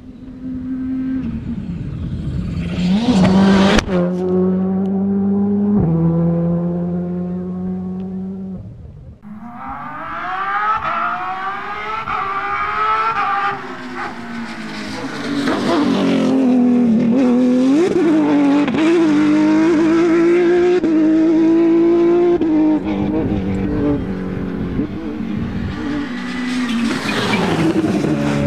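Rally car engines at full throttle on a stage, the pitch climbing and stepping down as the driver shifts gears, with cars passing close by.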